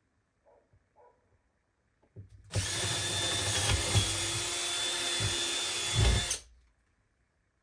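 Cordless drill running at full speed for about four seconds, boring a hole through a wooden wall for a stove's chimney pipe, with a few low knocks as the bit works through; it starts about two and a half seconds in and stops suddenly.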